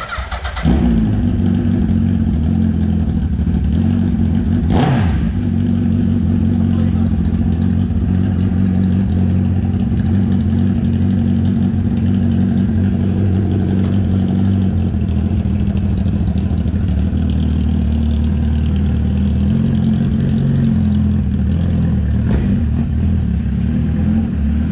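A 2020 Suzuki Hayabusa's inline-four engine starts about a second in, then idles steadily.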